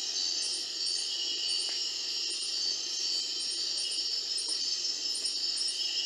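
Steady high insect chorus with a short, high double chirp repeating about twice a second.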